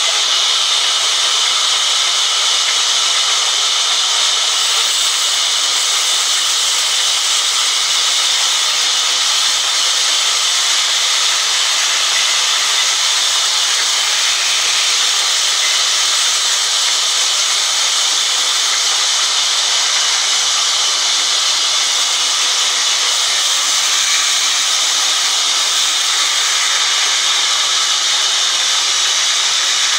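Large vertical band saw cutting lengthwise through a thick log as it is pushed through the blade: a steady, unbroken high hiss.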